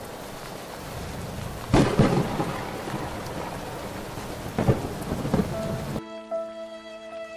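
Steady rain with two claps of thunder, the first about two seconds in and the second a little past the middle. About six seconds in the rain cuts off suddenly and soft, sustained music chords take over.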